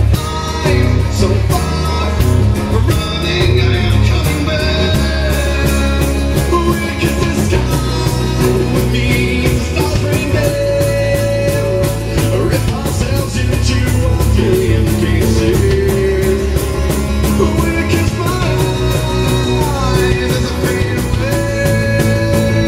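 Live acoustic band performance: a man singing into a microphone over acoustic guitar, with a steady beat.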